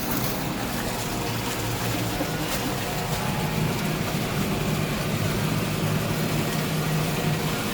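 Tractor engine running steadily under a constant low hum while ploughing.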